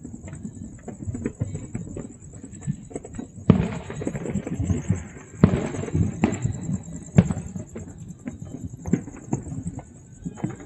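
Many fireworks going off across a wide area at once: a steady stream of overlapping distant pops and booms. Louder bangs come about three and a half, five and a half and seven seconds in, the first two with a rolling tail.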